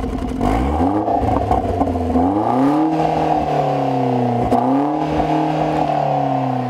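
2014 Chevrolet Sonic's turbocharged 1.4-liter four-cylinder, heard at the tailpipe of its Borla aftermarket exhaust, being revved while parked. The pitch climbs three times, holding each rev for a second or two before it dips, and starts falling back near the end.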